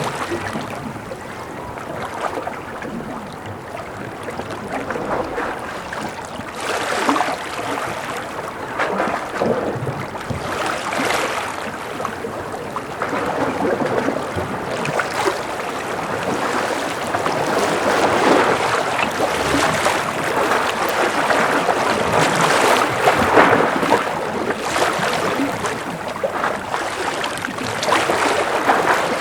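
Gentle sea waves lapping and splashing, coming in irregular surges every second or two and growing a little louder in the second half.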